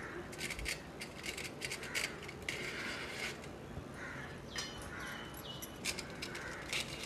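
Aluminium foil crinkling and rustling in short scratchy crackles as wooden ice-cream sticks are pushed through slits in the foil lids of small cups. The sound comes in two spells, one through the first few seconds and one again near the end.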